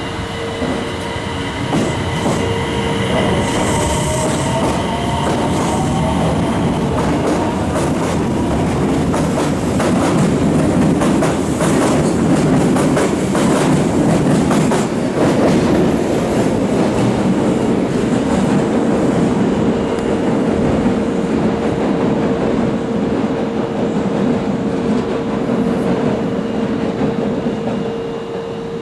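Osaka Metro Tanimachi Line subway train running on the rails, with steady clatter and rumble from the wheels and track. A rising motor whine is heard early on as it picks up speed, and a steady tone runs through much of it.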